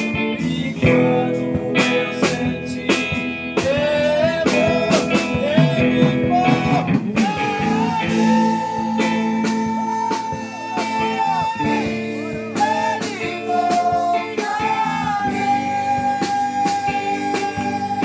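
Blues-rock music led by guitar, with notes bent and slid and a long held note about halfway through.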